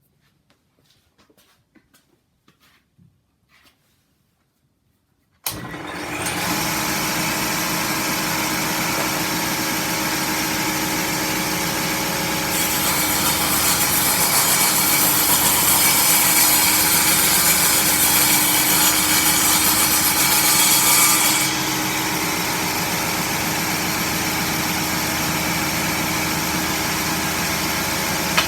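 A few faint clicks, then a table saw switches on about five seconds in and runs steadily. About halfway through it grows louder and hissier for roughly nine seconds as the blade cuts through wood, then it runs free again.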